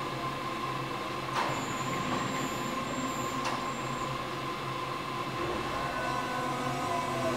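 Düwag M8C light-rail train at a platform, running with a steady electrical hum. About a second and a half in there is a click and a high warning tone as the doors close, ending with a second click. Near the end the train pulls away with a rising whine from the traction motors, getting louder.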